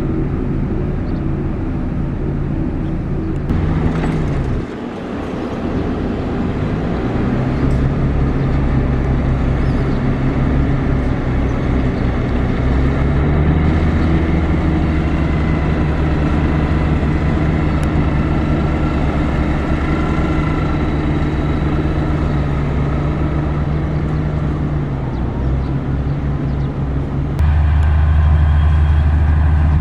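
Heavy construction machine engine running under load. Its pitch dips and rises as the machine works, then switches abruptly to a louder, deeper engine near the end.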